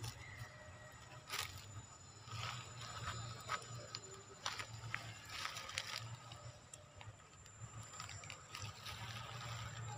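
Faint, irregular rustles and clicks, a few sharper than the rest, over a steady low rumble.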